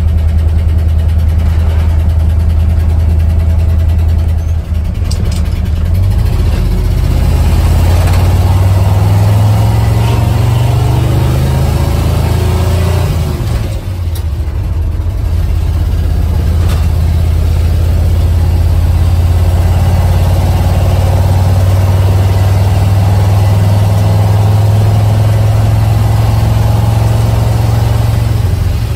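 1976 Ford F-250 pickup's engine heard from inside the cab while driving. It climbs in pitch as the truck accelerates, dips briefly about halfway through, then holds a steady cruising note.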